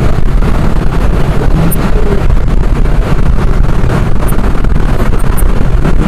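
Loud, steady engine and road noise of a moving bus, heard from the driver's seat, with wind buffeting the microphone.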